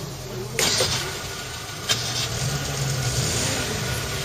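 Vehicle engine idling with a steady low hum. A short burst of noise comes about half a second in, and a sharp click near two seconds.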